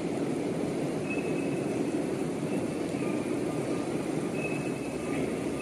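A steady low rushing din, with faint high beeps repeating on and off from about a second in.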